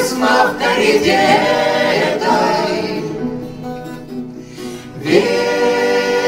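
Several voices, women and men, singing a slow lullaby together in harmony with acoustic guitar strumming. The singing eases off about three seconds in and swells again about five seconds in.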